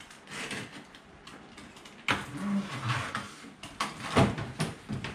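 Cardboard packing box being opened by hand: rustling and scraping of the cardboard flaps, louder from about two seconds in, with a sharp knock about four seconds in.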